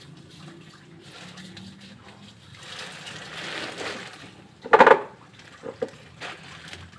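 A large plastic sack rustling and crinkling as it is handled. About five seconds in comes a short, loud pitched cry, loudest of all, followed by a few light knocks.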